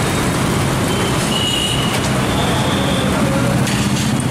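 Steady loud rumble of street traffic with a low engine hum, and a few brief high tones over it.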